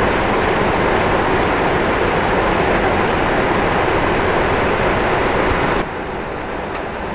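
Steady running noise of parked diesel vehicles idling, a highway coach between trucks. Near the end it drops abruptly to a quieter, steady background hum.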